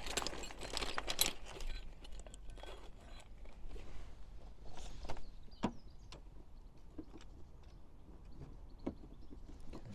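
Parts of a glue-pull dent repair kit being handled and fitted against the car panel: a cluster of light clicks and rattles in the first second or so, then a few scattered single clicks.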